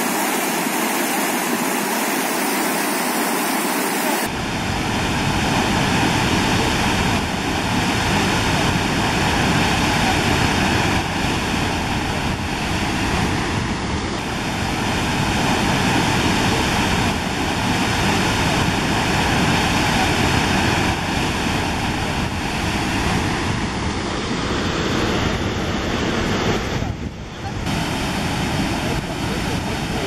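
River rapids rushing over rocks, a loud steady hiss of white water. About four seconds in a deep rumble joins in and stays under the rushing.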